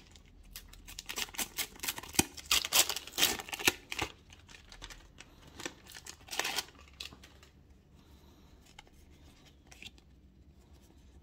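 Paper sticker envelope and stickers being handled: a run of crisp rips and rustles through the first four seconds, another about six and a half seconds in, then faint handling.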